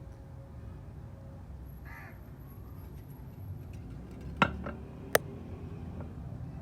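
Two sharp metallic clinks, about three quarters of a second apart, as metal parts knock together, over a low steady background hum.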